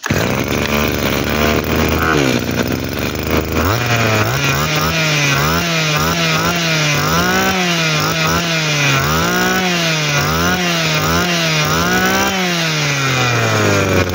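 Tanaka 20cc two-stroke brush-cutter engine running on the bench. It runs steadily at first, then from about four seconds in it is revved up and down repeatedly with the throttle, and it drops back to idle near the end.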